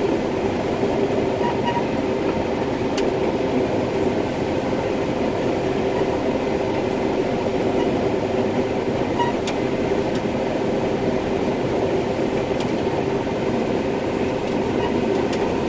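Combine harvester running steadily while harvesting corn, heard from inside the cab as an even mechanical drone with a faint hum, and a few faint ticks.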